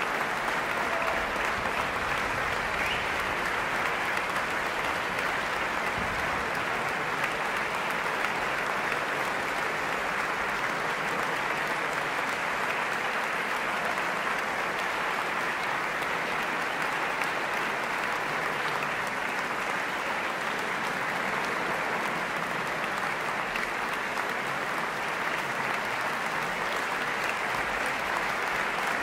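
Large concert audience applauding steadily as the orchestra takes its bows.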